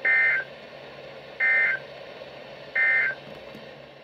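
Emergency Alert System end-of-message data burst: three short, loud bursts of the SAME digital warble, about a second and a third apart, over a steady background hiss. It marks the end of the flash flood warning broadcast.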